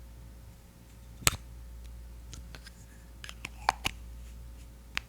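Close-miked ASMR clicks and taps on a Hawaiian Tropic mineral sunscreen powder applicator: a handful of sharp clicks spaced unevenly, with lighter ticks between them.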